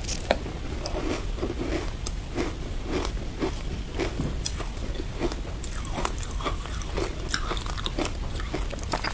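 Ice crunching and chewing: teeth biting into a frozen block of matcha ice and grinding it, with many sharp crackling crunches, several a second.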